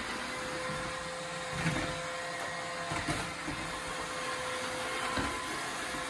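iRobot Roomba 694 robot vacuum running, a steady whirring hum with a held whine from its motor and brushes. Three short knocks break through it, about two seconds in, three seconds in and near the end.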